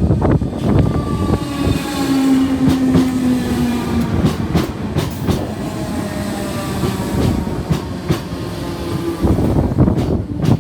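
Merseyrail Class 508 electric multiple unit passing at close range, its motors whining and shifting in pitch over a heavy rumble. The wheels click repeatedly over rail joints.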